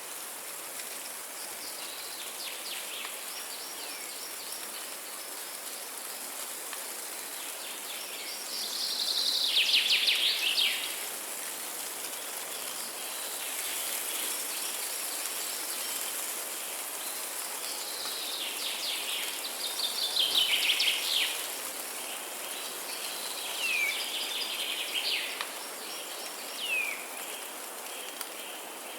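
Forest birds singing: trilled song phrases, loudest about a third of the way in and again past the middle, then short downward-slurred whistles near the end, over a steady high hiss.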